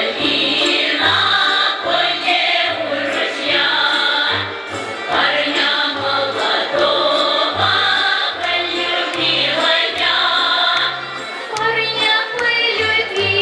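Recorded folk dance song: a women's choir sings over a steady, bouncing bass line, played loud over the stage loudspeakers as accompaniment to a Russian folk dance.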